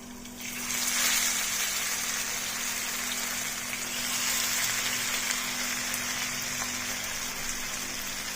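Masala-coated fish frying in hot coconut oil with crushed garlic. The sizzling starts about half a second in as the fish goes into the pan, then holds steady.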